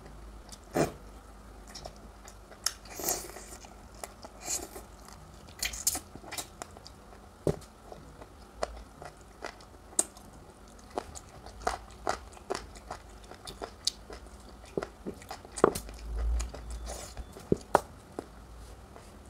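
A person eating curry and rice close to the microphone: irregular sharp bites, chewing and wet mouth clicks.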